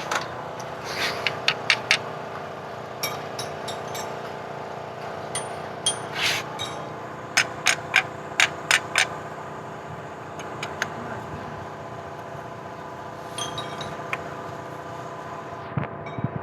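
Metal hand tools and bolts clinking and tapping on engine parts during reassembly, in scattered bursts of sharp clinks, over a steady background hum.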